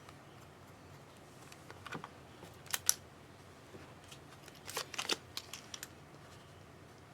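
Trading cards and their holders being handled on a table: scattered light clicks and taps, the sharpest a quick pair about three seconds in and a cluster around five seconds in.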